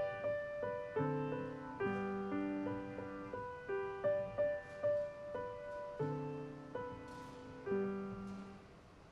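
Grand piano playing a slow piece: a melody of single notes over held low chords. The last chord fades away near the end.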